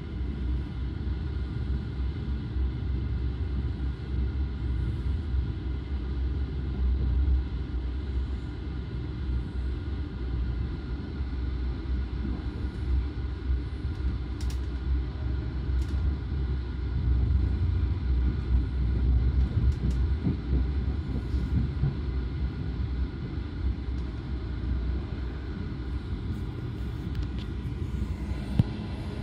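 Running noise inside a Belgian Railways I10 passenger coach under way: a steady low rumble of the wheels on the track, with a few faint clicks in the middle and one sharp knock near the end.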